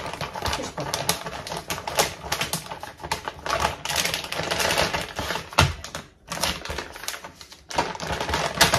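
Plastic bag crinkling and rustling as puff pastry dough is packed into it: a dense run of small crackles, with a low thump about five and a half seconds in.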